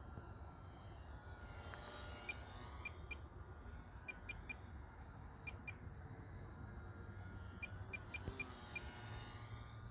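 Faint, high whine of an ultra-micro RC biplane's electric motor, sliding up and down in pitch as the plane flies about. Under it runs a low rumble, and scattered sharp ticks come through.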